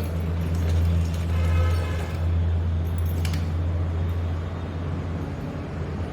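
A steady low motor hum that weakens about four and a half seconds in, with a single faint click partway through.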